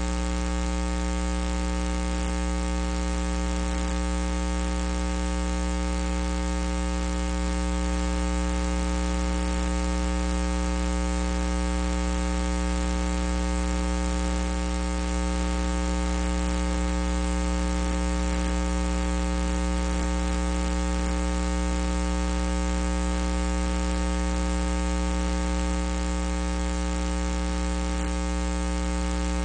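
Loud, steady electrical mains hum and buzz with a layer of hiss, unchanging throughout.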